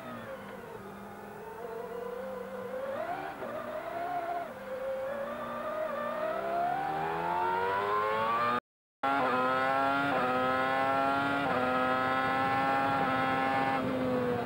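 McLaren-Mercedes V10 Formula One engine heard onboard: low revs through a slow corner, then a long rising pull through the gears, with quick upshifts at high revs and the pitch falling away near the end as the car slows for the next bend. The sound cuts out briefly about two-thirds of the way through.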